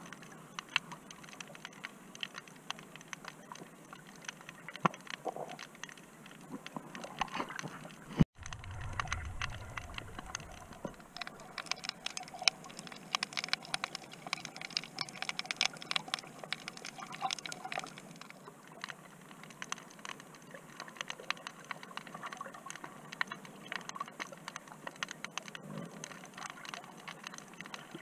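Underwater sound picked up by a submerged camera: a constant, irregular crackle of small clicks. Just after 8 s the sound cuts out abruptly and comes back with a brief low rumble.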